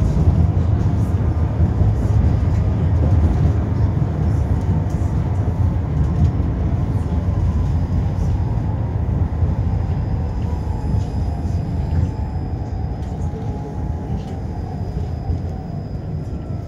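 A 71-931M Vityaz-M low-floor tram running along its track, heard from inside the car: a steady low rumble of the wheels and body, with a faint motor whine that slowly falls in pitch as the tram slows and the sound eases down.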